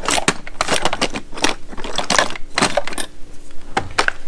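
Small ratcheting screwdrivers being picked through and handled in a tool drawer: irregular clattering knocks and rattles as they hit each other.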